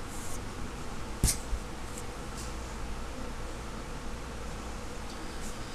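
A steady electrical hum and hiss, with one sharp click a little over a second in as a finger presses a key on a Sony Ericsson Xperia X8 phone, and a few fainter ticks after it.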